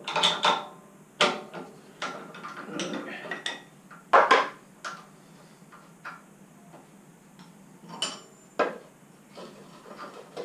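Irregular metal-on-metal clinks and knocks of spanners and the cutter being handled at a milling machine's spindle as a 4-flute slot drill is taken out, the loudest knock about four seconds in.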